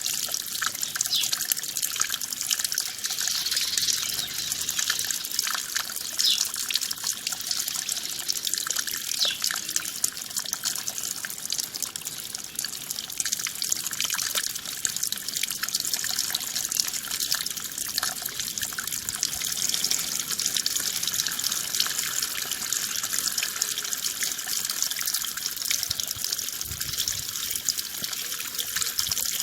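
Running water splashing and trickling steadily, a continuous high hiss made of many small splashes with almost no low rumble.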